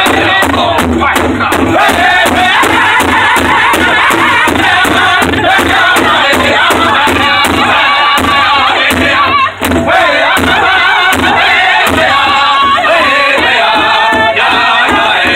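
Powwow drum group singing together over a large hide drum struck in unison by several drumsticks, a steady beat of about three strokes a second. Drum and voices drop out for a moment about nine and a half seconds in, then go on.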